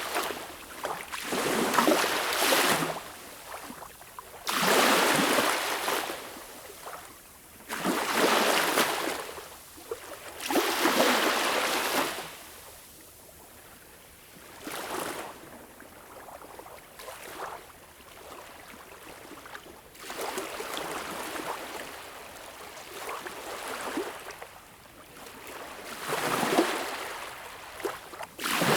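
Small waves washing onto a beach, each breaking as a hissing swell a second or two long and drawing back, about every three seconds at first, then a calmer lull midway before softer waves resume.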